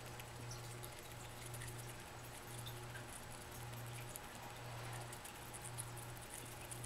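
Pet rat nibbling and chewing a grape held in its paws: many small, quick wet clicks and crunches. A low hum with a short break about once a second runs underneath.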